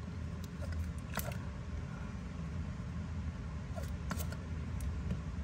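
A few faint, short clicks and taps from a metal lighter being handled, over a low steady hum.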